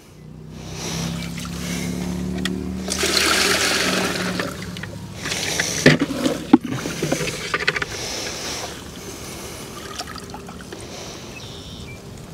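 Water scooped up in a plastic bucket and poured into a plastic cooler, splashing and trickling. There are two sharp knocks about six seconds in, and a low hum underneath during the first few seconds.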